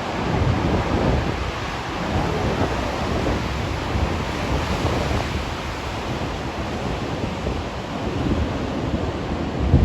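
Large ocean waves breaking in a continuous wash of surf, with wind buffeting the microphone.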